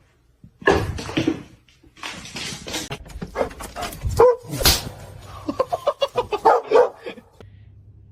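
A dog barking in a string of short barks and yelps, ending in a quick run of short barks.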